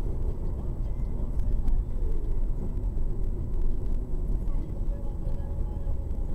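Steady road and engine noise of a car driving at speed on an open highway, heard from inside the cabin.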